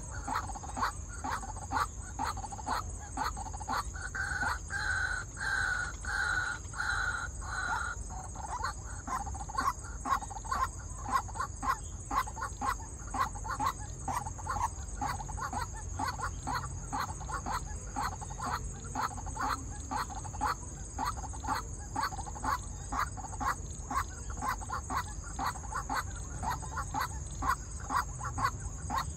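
White-breasted waterhen, a caged decoy bird, calling in a rapid, regular series of short notes, roughly three a second, with no break. A second, higher-pitched series joins in about four seconds in and stops about four seconds later, over a steady high whine.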